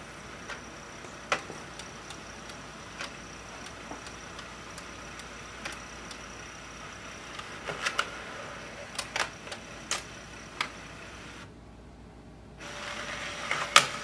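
HP Envy 6455e all-in-one printer scanning pages through its automatic document feeder: a steady faint mechanical whir with scattered clicks. It goes quieter for about a second near the end, then the mechanism runs louder with a low steady tone.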